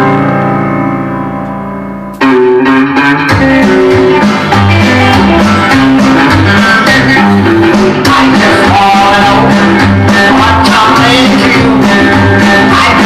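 Recorded rockabilly-style music in a DJ mix: the last chord of one track rings out and fades, then about two seconds in the next guitar-led track starts abruptly at full level with a steady beat.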